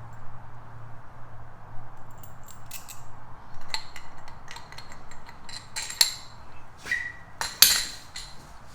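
Metal motorcycle hardware (bolts, washers and slider parts) clinking and clattering as it is handled, with two louder sharp clinks near the end, over a low hum that fades out in the first few seconds.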